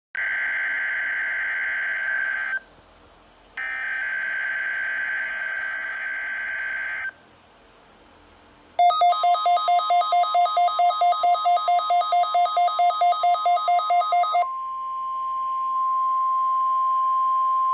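NOAA Weather Radio Required Weekly Test signal: two buzzing bursts of SAME digital header data, a few seconds each with a short gap between. Then a rapid beeping, about four beeps a second, over a steady single-pitch warning alarm tone. The alarm tone carries on alone for a few seconds after the beeping stops.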